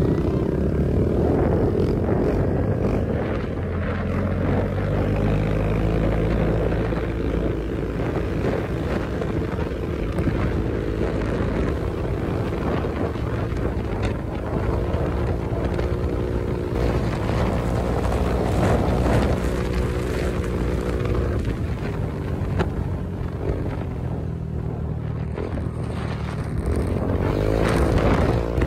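Honda PCX 150 scooter's single-cylinder engine running at riding speed under a steady low rumble of wind and road noise, its pitch rising and falling with the throttle and climbing near the end.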